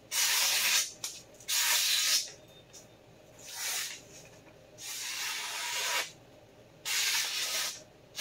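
Freshly sharpened 14-inch carbon steel chef's knife slicing through hanging newspaper: five short, clean hissing cuts with pauses between them, the fourth a little longer and the third fainter. The clean, even hiss is the sign of a razor-sharp edge.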